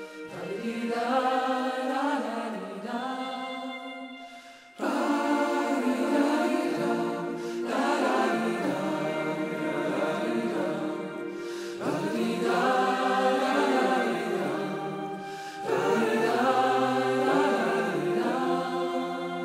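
Background music: a choir singing slow, drawn-out phrases, a new phrase starting every three to four seconds.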